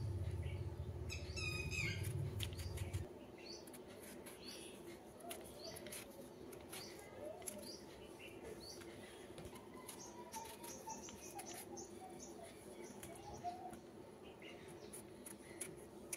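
A small knife paring the skin off pumpkin slices, heard as faint scraping clicks, while small birds chirp in the background. A low rumble stops about three seconds in.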